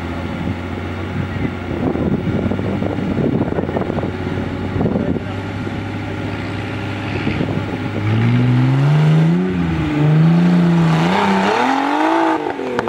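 Off-road trial buggy's engine running at a steady low idle, then revving up and down unevenly under load from about eight seconds in as the buggy climbs over the obstacles, easing off near the end.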